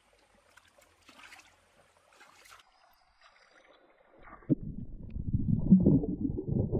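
Light splashing of shallow stream water. About four seconds in it changes to a much louder, muffled churning and bubbling, as heard from under the water, with air bubbles swirling around a hand working in the streambed.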